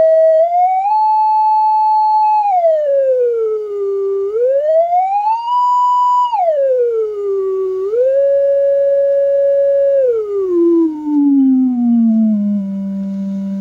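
Audio tone generator's sine tone playing through its speaker, its pitch swept up and down by hand: the tone glides up and down several times between held notes, then sinks to a low steady tone near the end.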